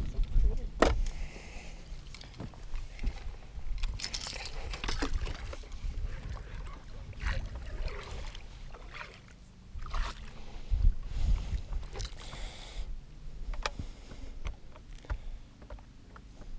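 Scattered clicks, knocks and rattles of fishing rods, reels and tackle being handled and cast in an aluminum boat, with low thumps and rumble underneath.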